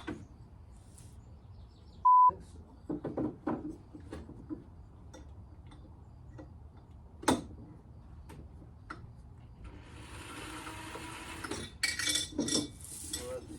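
A loud single-pitched beep lasting about a third of a second, about two seconds in, with all other sound cut out under it: a censor bleep over a word. Scattered clicks and knocks from handling tools and parts follow, then a hissing rush about ten seconds in and some clattering near the end.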